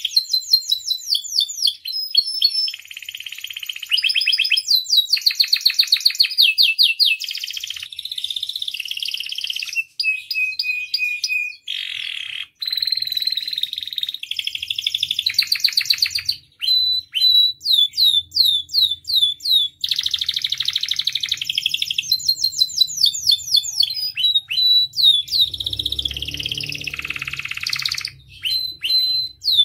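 Domestic canary singing a long, continuous song of rapid trills and rolls. It switches every second or two to a new phrase of fast repeated notes, with a few brief pauses.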